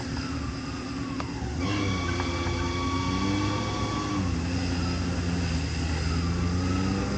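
Off-road 4x4's engine running under load, its pitch rising about one and a half seconds in and changing again a few seconds later, with a higher mechanical whine over it.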